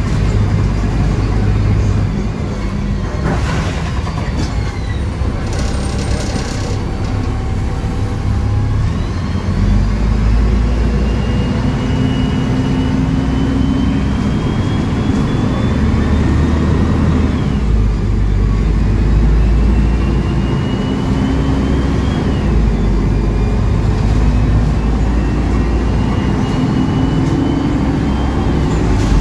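Mercedes-Benz OM906LA turbo-diesel inline-six of a rear-engined city bus running under load as the bus drives, heard from inside the cabin. A high whine climbs steadily and drops away suddenly, three times in the second half.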